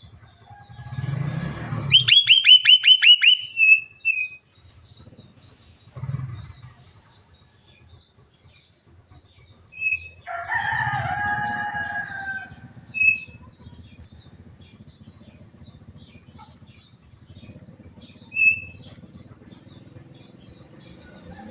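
Javan myna calling: a quick run of about eight sharp, descending whistled notes about two seconds in, scattered single whistles, and a longer call with a slightly wavering tone about ten seconds in. Rough, noisy bursts come just before the whistle run and again around six seconds.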